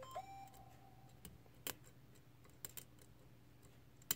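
Faint, scattered metallic clicks from a disc detainer pick rotating the discs of a five-disc lock under tension, with the sharpest click near the end. These are the feedback clicks of the discs reaching their gates while the lock is picked.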